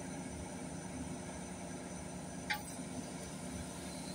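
A steady low mechanical hum, with a single short metallic clink about two and a half seconds in, as a long metal bar is worked against the hoisted engine.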